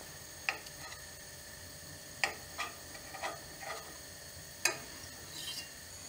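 Butter melting and foaming in a cast iron skillet: a faint steady sizzle with about eight sharp pops and light clicks at irregular intervals.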